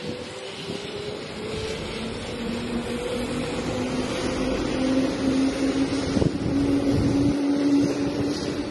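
JR 211 series electric train pulling away and accelerating, its motor and gear whine rising slowly in pitch over the running noise. A couple of knocks from the wheels come about six and seven seconds in.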